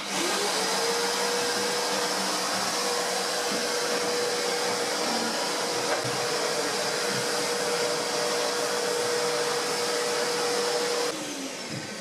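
New wet-and-dry vacuum cleaner switched on, its motor spinning up to a steady whine within the first second, then running steadily as its hose sucks up debris from the floor. It is switched off near the end and winds down with a falling tone.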